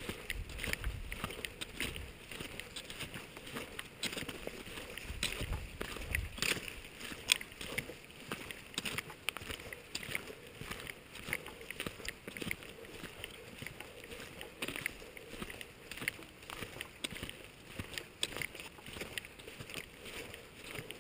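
Shallow, low-running creek babbling over rocks, with gusts of wind on the microphone near the start and about five seconds in.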